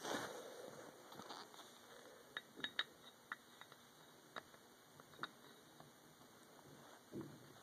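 Faint handling noise of a steel-framed pistol and its grip panel: a brief rustle at the start, then a scatter of small, sharp clicks and taps of parts touching, with a soft knock near the end.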